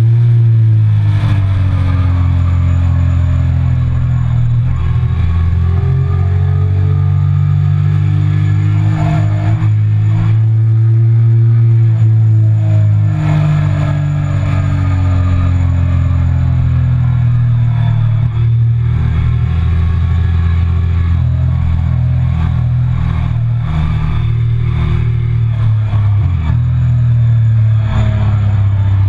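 Triumph Speed Triple 1050's three-cylinder engine heard onboard at track speed, its pitch sliding down over long stretches with a few short rises as the bike slows from the straight into a corner, over steady wind rush.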